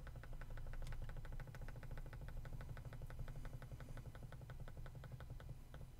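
Rapid, even computer clicks, about ten a second at first and slowing toward the end, as handwritten strokes in a drawing program are undone one by one; a steady low hum runs underneath.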